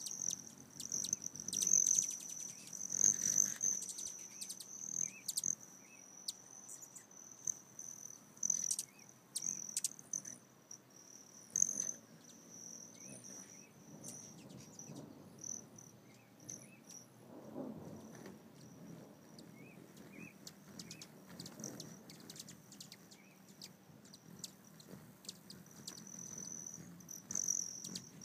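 Hummingbirds flying around a feeder: a high, steady, metallic buzzing trill of wings that swells as birds come close and fades as they move off, with short high chirps now and then.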